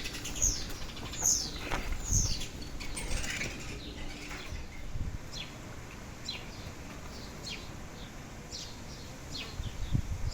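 Birds chirping: short high calls that fall in pitch, several close together in the first couple of seconds, then fainter calls about once a second. A few low thumps come among the first calls.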